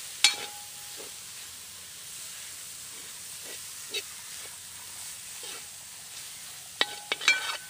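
A metal spoon scraping and clinking against a large aluminium pot as squid pieces are tossed in chilli masala, over a steady hiss. A sharp ringing clink comes just after the start, another about four seconds in, and a quick run of clinks near the end.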